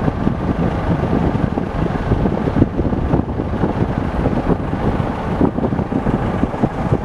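Wind buffeting the microphone: a loud, uneven low rumble, with a faint steady machine hum underneath.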